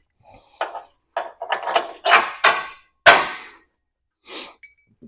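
A run of irregular metal clanks and knocks from fitting bolts into a Mack Cruise-Liner's truck frame rail, the loudest a sharp clank about three seconds in that rings briefly.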